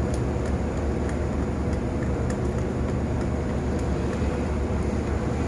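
Idling diesel engines of a standing diesel-hauled passenger train: a steady low drone with no change in pitch or level.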